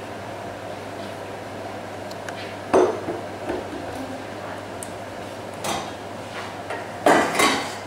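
Pans and utensils clattering on a kitchen worktop and hob: a sharp clunk about three seconds in, a lighter knock a few seconds later, and a double clatter near the end, over a low steady hum.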